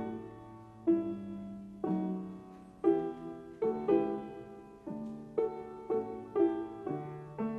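Slow, calm instrumental music: single plucked or struck notes, about one a second, each starting sharply and ringing away, over a low held bass note.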